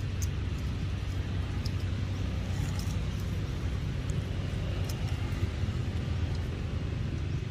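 A steady low rumble, with a few faint ticks scattered through it.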